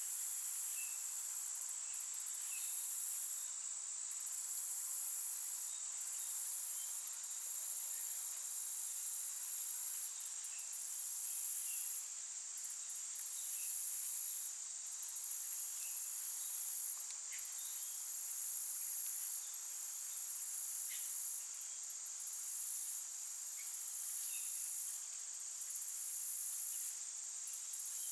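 Insect chorus: very high shrill trilling in runs of a second or two broken by short gaps, over a steady high whine, with faint scattered chirps beneath.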